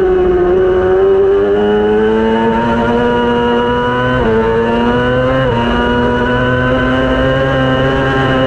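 A 600-class racing motorcycle's engine running hard at high revs. The pitch climbs steadily under acceleration, then dips twice in quick succession, about four and five and a half seconds in, as it shifts up, and holds fairly steady after that.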